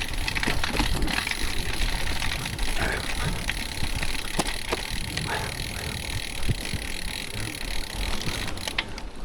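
Salcano XRS01 carbon road bike being ridden through rain: a steady hiss of tyres on the wet road with wind rumble, and scattered clicks and rattles.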